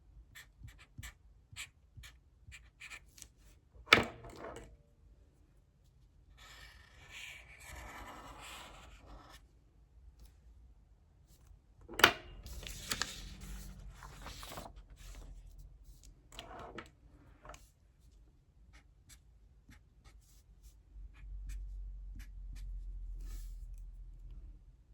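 Handwriting: short writing strokes, longer stretches of continuous scratching as lines are written out, and two sharp knocks of the writing tool about four and twelve seconds in. A low rumble comes in near the end.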